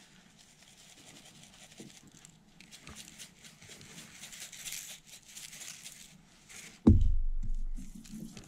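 Seasoning rub shaken from a spice shaker bottle onto a raw steak: a soft, pattering rattle that grows louder toward the middle. Near the end, a sudden loud thump.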